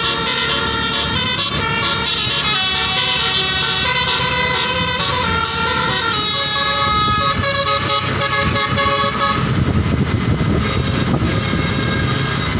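A tour bus's multi-trumpet telolet (basuri) horn plays a tune as chords of held notes that step from pitch to pitch, over a low vehicle rumble. Near the end the horn notes fade and the rumble is louder.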